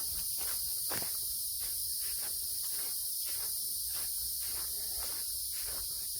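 A hiker's footsteps on a woodland trail, about two steps a second, over a steady high buzz of insects.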